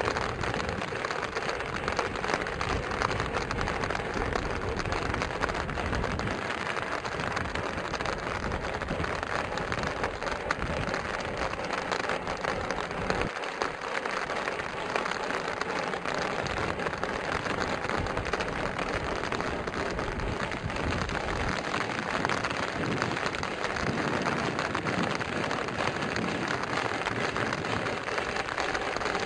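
Steam locomotive working hard, its exhaust heard as a steady rushing noise without separate beats.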